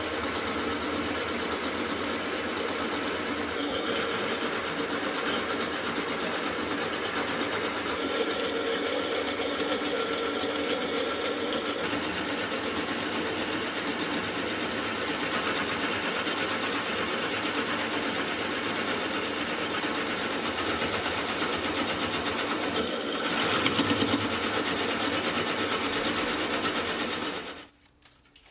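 Milling machine spindle running steadily while a piloted counterbore cuts counterbores into steel bolt holes. It gets louder for a few seconds near the end, then stops abruptly shortly before the end.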